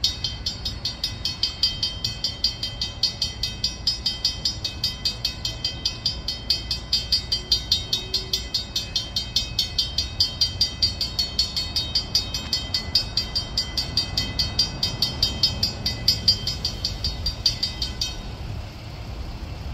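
Railroad crossing warning bell ringing rapidly and steadily, about three strikes a second, as the crossing activates for an approaching train and its gates lower. The bell cuts off abruptly about eighteen seconds in, once the gate arm is fully down.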